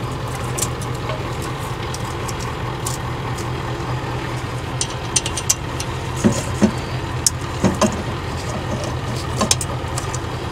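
Light metal clinks and taps as a replacement turbocharger and its gasket are fitted by hand onto a diesel's exhaust manifold, a handful of them between about five and ten seconds in. Under them runs a steady low engine drone from some other machine, since the engine being worked on is not running.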